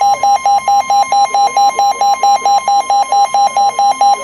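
Weather radio alert alarm: a rapid electronic beep pulsing about six times a second over a steady high tone. The steady tone is the NOAA Weather Radio 1050 Hz warning alarm tone, which comes before a broadcast warning.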